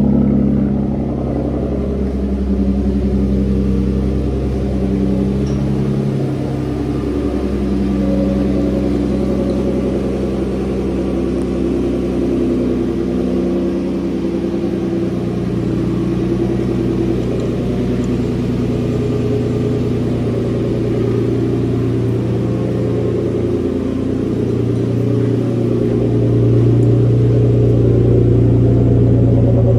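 2017 Nissan Maxima's 3.5-litre V6 idling steadily through its exhausts after a cold start, having sat unstarted for three days. It gets a little louder near the end.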